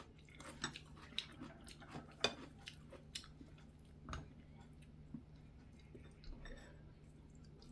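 A person chewing food up close, with light clicks and taps of chopsticks and a spoon against bowls; a few of the clicks are sharper.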